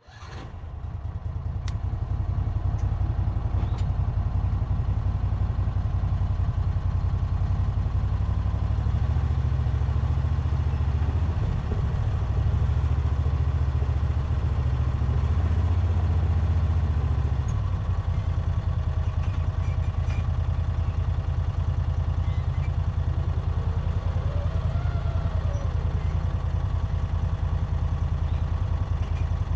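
An engine idling steadily with a low, evenly pulsing rumble. It runs heavier for a stretch in the middle and settles back a little over halfway through.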